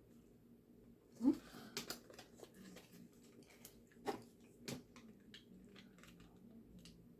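Quiet chewing of a grinder sandwich, with a few short sharp crunches and mouth clicks.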